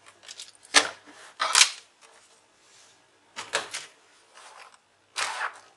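Plastic snap-fit clips of a Lenovo IdeaPad 100's bottom cover clicking free as the cover is pried off: four sharp snaps spread over several seconds, with quiet handling rustle between.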